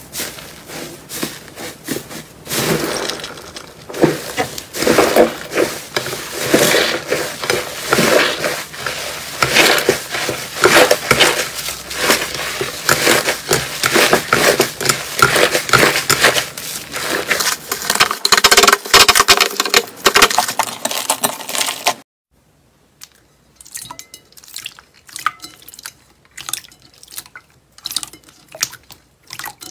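Hands pressing and squeezing a thick purple crunchy slime, a loud dense run of sharp crackles and squelches. About two-thirds of the way through it cuts to a much quieter scatter of small wet clicks as a clear jelly slime is stretched and poked.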